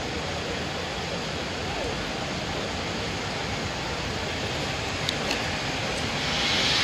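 Ty42 steam locomotive drifting slowly into a station, giving a steady hiss of steam that grows louder near the end as the engine draws close.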